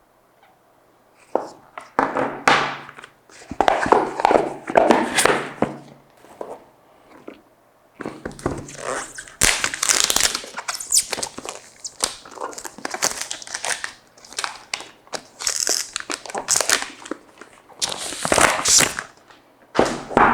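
Unboxing an iPhone: plastic wrapping tearing and crinkling, with taps and knocks as the box and its contents are handled, in irregular bursts with short pauses.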